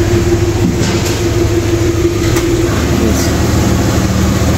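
A steady, low mechanical drone, like an engine or machinery running. A humming tone within it gives way to a lower hum about three seconds in.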